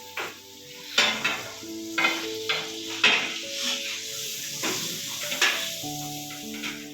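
Crumb-crusted chicken sizzling in a hot pan, with several sharp scrapes and clatters of a utensil against the pan. Background music plays throughout.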